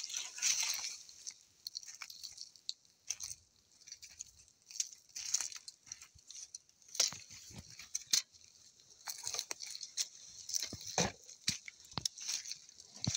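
Footsteps crunching and brushing through dry vegetation: an uneven run of crunches and rustles, with a few sharper snaps about seven, eight and eleven seconds in.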